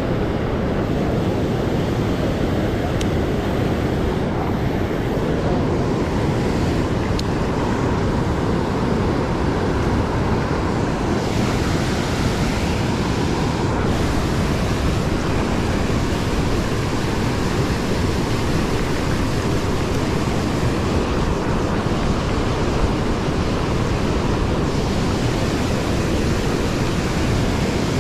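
Steady rush of the Feather River's current pouring over a low concrete weir into whitewater.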